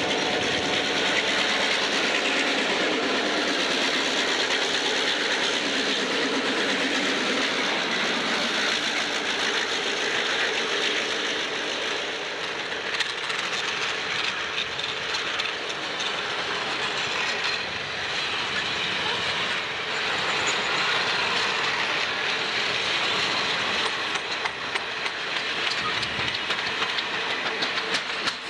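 Rio Grande Ski Train passing close at speed: the EMD F9 diesel locomotives run by first, then a long string of passenger coaches rolls past with steady rumble and wheel noise. Near the end the wheels click rhythmically over the rail joints.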